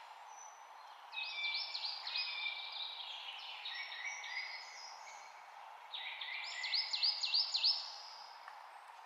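Songbirds singing in two bursts of quick, high, falling whistled notes, the first about a second in and the second about six seconds in, over a steady background hiss.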